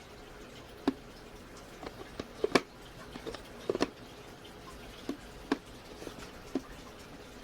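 Irregular light clicks and knocks, a dozen or so, the loudest about two and a half and four seconds in, from hard plastic parts of a cordless handheld vacuum cleaner being handled and fitted together; the vacuum is not running.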